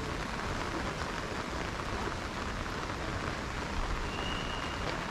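Heavy rain falling in a steady, even downpour. A short high tone sounds about four seconds in.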